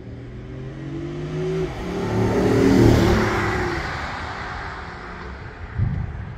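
A car driving past on the street: its engine hum and tyre hiss build up, are loudest about three seconds in, then fade away.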